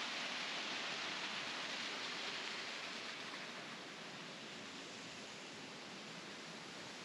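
Small waterfall cascading over rocks: a steady rush of water that fades somewhat a few seconds in.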